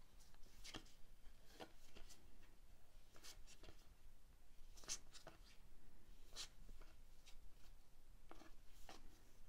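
Faint handling of One Piece Card Game trading cards: about a dozen short, soft, scratchy slides and flicks at irregular intervals as cards are pushed one past another.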